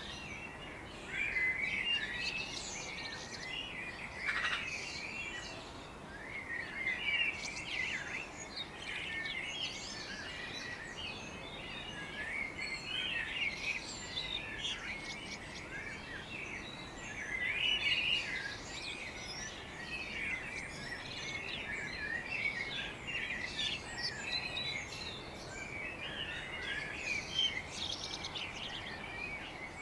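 Several songbirds chirping and singing at once in a morning chorus, with many overlapping quick chirps and trills that never stop, over a faint steady background hiss.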